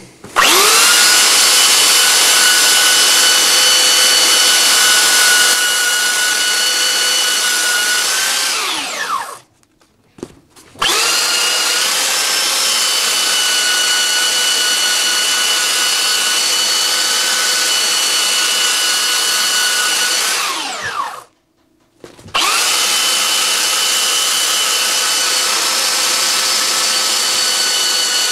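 Handheld electric belt sander running while it grinds down a motorcycle seat's foam padding. It is switched off twice, each time winding down with a falling whine, and starts up again after about a second.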